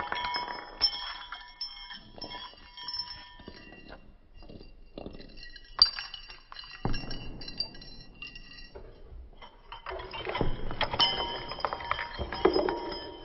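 Kinetic objects clinking and rattling in an irregular, layered clatter, with short ringing notes. There is one sharp strike about six seconds in, and the clatter grows denser and louder from about ten seconds.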